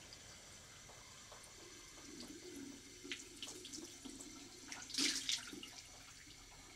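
Water running from a bathroom sink tap into cupped hands, with small splashes. About five seconds in, the loudest moment: a brief splash as the water is brought up to the face.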